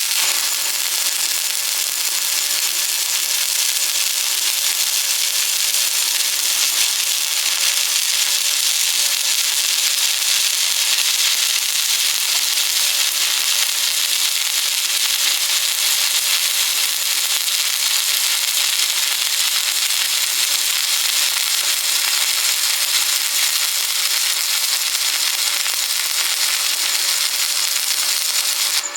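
Stick-welding arc burning continuously: a steady, even hiss with no pauses.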